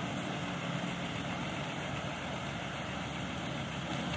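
Heavy diesel truck engine running steadily at low revs as the truck reverses slowly.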